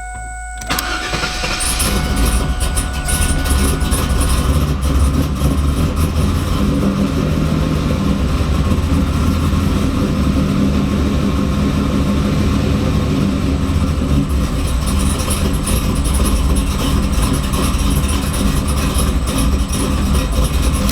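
2002 Camaro SS's 5.7-litre LS1 V8 starting on the key and catching within about a second, then running at a steady idle until it is shut off at the very end. It now starts because the VATS anti-theft system has been disabled.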